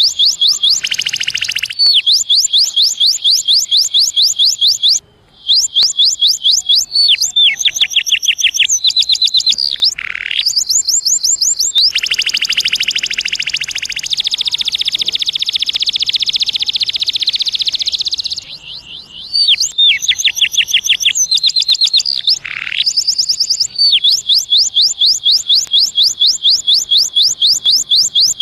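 Domestic canary singing: a long song made of rapid high-pitched trills, each a quick run of repeated falling notes. A faster, continuous roll in the middle lasts about six seconds, with short breaks between phrases.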